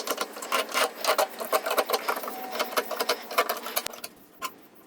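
Rapid, irregular light clicks and taps from wooden framing pieces being handled and lined up against a 2x4. The clicks thin out about four seconds in.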